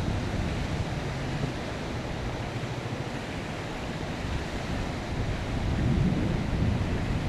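Wind buffeting the microphone, a steady low rumble that grows stronger about six seconds in.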